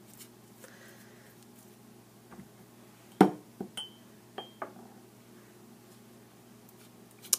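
A sharp knock as a buttered potato is set down into a metal round cake pan, followed by a few light clinks of kitchen dishware, two of them with a short high ring, over a faint steady hum.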